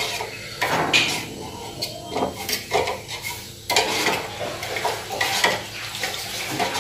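A metal spoon stirring a thin cereal-and-milk mix in a small steel pan, scraping and clinking against the metal in irregular strokes.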